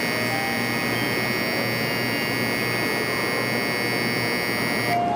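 Electronic departure bell on a Shinkansen platform, ringing as one steady, high buzzing tone that cuts off sharply about five seconds in, the signal that the train doors are closing. A steady low hum of the station and the waiting train runs underneath.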